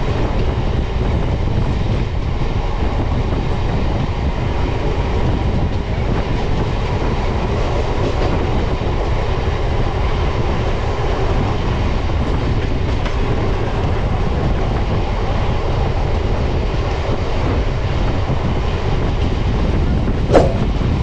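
A passenger train running along the track, heard from the coach side: a steady rumble of wheels on rails with a rush of air. There is one brief sharp sound near the end.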